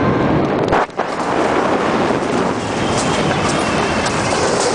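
Bobsled car of a mountain coaster running fast along its steel tubular rails, its wheels giving a steady rumbling rush with faint clicks, briefly dipping about a second in.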